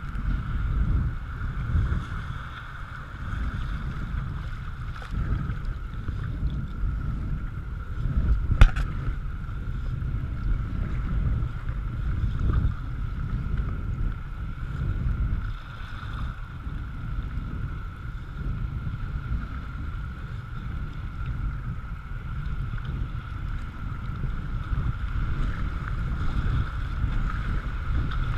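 Whitewater kayak heard from a camera on its front deck: rushing river water and the splash of paddle strokes, with wind buffeting the microphone. One sharp knock about eight and a half seconds in.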